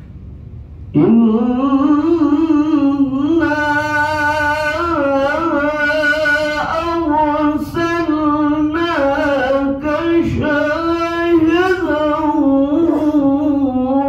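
A man's solo voice chanting in Arabic through a microphone in a melismatic style, starting about a second in and holding long notes with a wavering, ornamented pitch and brief breaths between phrases.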